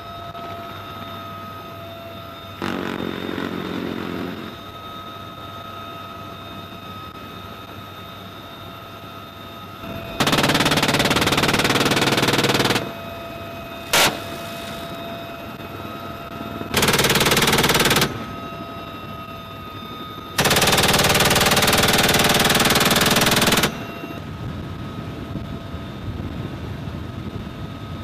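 GAU-17 six-barrel electrically driven minigun firing from a helicopter's door mount in three long continuous bursts of about two and a half, one, and three seconds, each an unbroken stream of shots, plus a quieter burst about three seconds in and a single sharp crack midway. Between bursts the helicopter's steady cabin noise and engine whine carry on.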